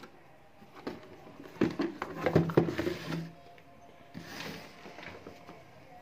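Handling noise from a cardboard box and a plastic air blower being moved about: a quick run of knocks and clicks about two seconds in, then a brief rustle. The blower is not running.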